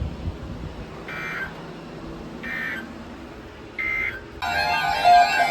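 EAS/SAME end-of-message signal: three short warbling data bursts about a second apart, closing the weather radio broadcast. About four and a half seconds in, music starts.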